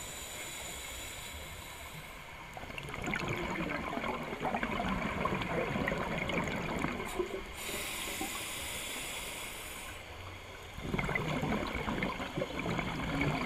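Scuba diver breathing through a regulator, heard underwater through the camera housing. A hissing inhale is followed by a long gurgle of exhaust bubbles, twice.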